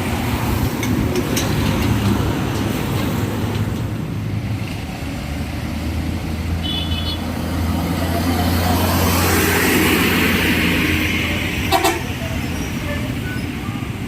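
Tour bus on a Mercedes-Benz 1626 chassis going by with its diesel engine running, swelling louder past the middle as it passes. A short, high horn toot sounds about halfway through, and a sharp click comes near the end.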